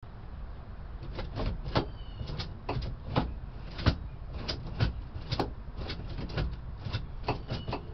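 Cable-operated manual gear shifter being worked back and forth through the gears, its lever and exposed shift-cable linkage clicking and clunking irregularly, two or three knocks a second.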